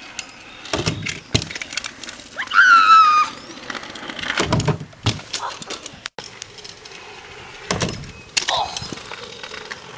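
Kick scooters rolling on asphalt and hitting a small double jump ramp, with several sharp knocks from the wheels and deck striking the ramp and landing. There is a brief high-pitched squeal about two and a half seconds in, the loudest sound.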